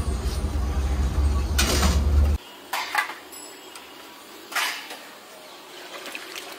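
Stainless steel canisters and lids knocking and clanking a few times. A loud low rumble runs under them until a little over two seconds in, then cuts off suddenly.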